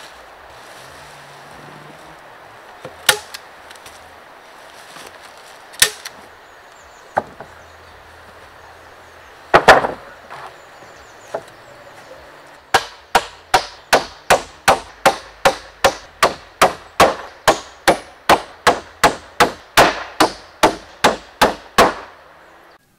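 Wooden planks knocked into place, then nailed to a wooden floor frame with a hammer. A few separate wooden knocks and a loud double clack come first, then a steady run of sharp hammer strikes, a little over two a second, through the second half.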